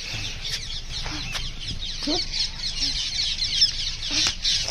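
Dense, continuous chirping and chatter of many small birds, with a few short low clucks from chickens among it.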